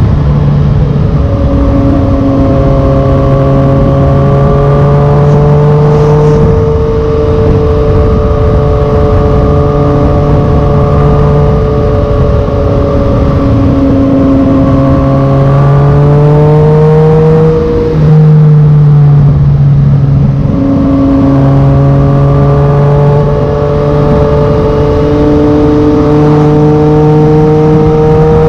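Yamaha MT-09 inline three-cylinder engine through a Black Widow carbon full exhaust system, running under load. Its pitch climbs and eases gradually, then dips sharply and builds again about two-thirds of the way through. Wind rush sits underneath.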